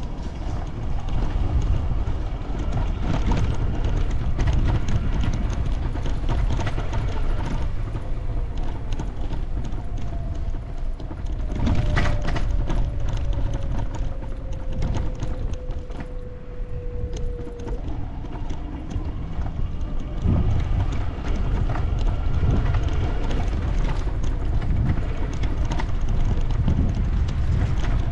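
Walking street ambience on brick pavement: footsteps clicking over a steady low rumble. Around the middle, a faint drone falls slowly in pitch.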